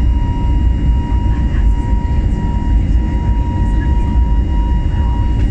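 Airliner cabin noise during the climb after takeoff: a loud, steady engine and airflow rumble with a thin, steady whine above it.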